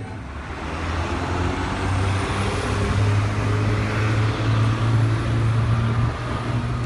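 A large road vehicle's engine passing close on a city street: a low drone over traffic noise that grows louder over the first few seconds and drops off about six seconds in.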